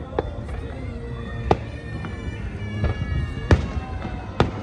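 Fireworks going off: about five sharp bangs spaced irregularly, heard over a layer of long, steady whistling tones.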